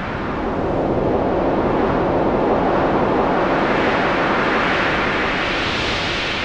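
A steady rushing noise that swells up over the first second, then holds even.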